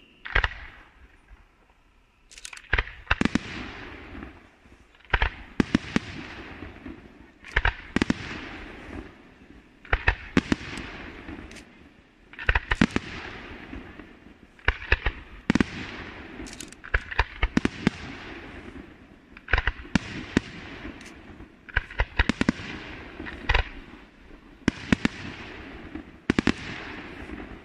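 Aerial fireworks shells bursting one after another: after a quiet couple of seconds, a sharp bang, often doubled, comes every two to three seconds. Each bang is followed by a fading crackle and hiss.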